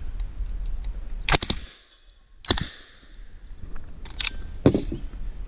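Submachine gun firing: a quick burst of about three or four shots about a second and a half in, then a single shot about a second later. Sharp clacks follow near the end as the gun is held over the spare magazines for a reload.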